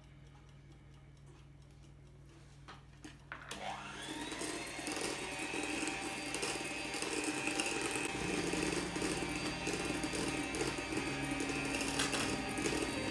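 Electric hand mixer switched on about three and a half seconds in, its motor whining up to speed and then running steadily as the beaters churn batter in a steel bowl.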